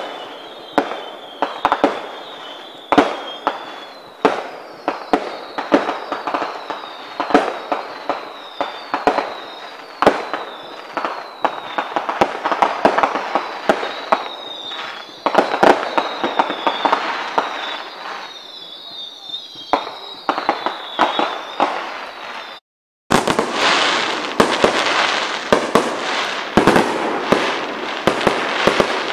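Fireworks display: a rapid, continuous run of bangs and crackling, with repeated high whistles falling in pitch through the first two-thirds. A short gap of silence comes about 23 seconds in, after which denser crackling resumes.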